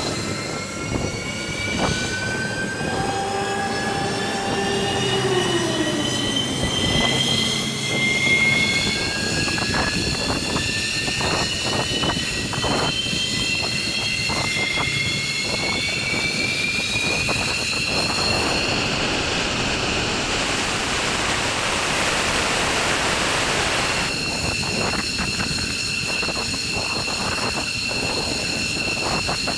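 F-15 fighter's jet engines spooling up: a turbine whine climbs steadily in pitch over the first several seconds, then holds as a steady high whine over a rushing hiss.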